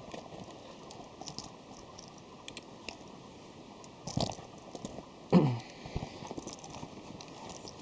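Handling noises as a 35mm camera is fitted into its carrying case: scattered light clicks, taps and rubbing, with a sharper knock about four seconds in. About five and a half seconds in comes the loudest moment, a short knock together with a brief low vocal sound.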